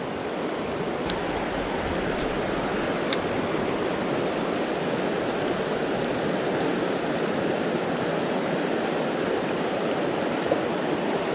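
Fast-flowing river rushing over rocks: a steady, even rush of water. Two faint clicks come about a second and three seconds in.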